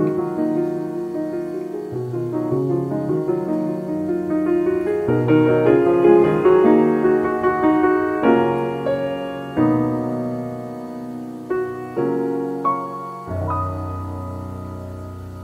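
Background piano music, notes struck in a flowing melody over chords, ending on a held chord that slowly fades.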